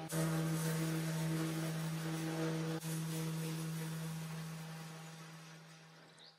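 Electric orbital sander running against bare wood, a steady hum over a hiss. The sound fades away over the last two seconds.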